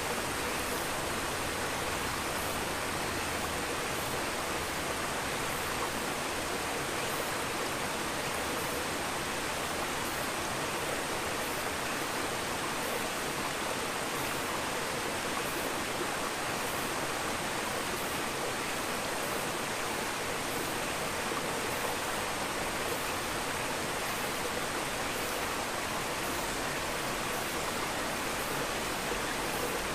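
Steady rushing, water-like noise with a faint high whine, unchanging throughout.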